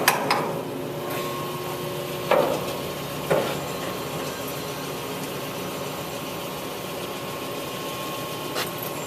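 Harrison metal lathe's geared headstock running steadily in the 315 RPM speed range, with a few short clicks in the first few seconds and one near the end. The hum is even and quiet, a sign of sound gearing and bearings in this range.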